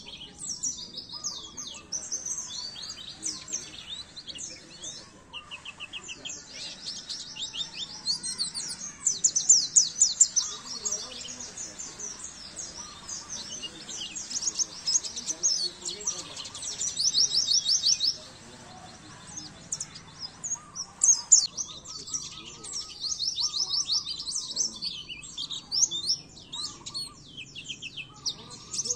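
Small songbirds chirping and singing rapid, high-pitched trills almost without pause, a masteran bird-song recording used to train caged white-eyes (pleci).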